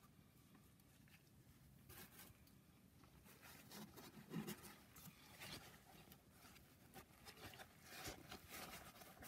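Shop rag rubbed and wiped against the combustion chambers of a BMW N54 cylinder head: faint, irregular scratchy rubbing strokes starting about two seconds in.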